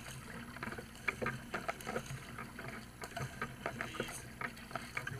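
Sprint kayak being paddled hard: the paddle blades splash into the water on alternating sides, with irregular splashes and water drops hitting close to the camera, several a second.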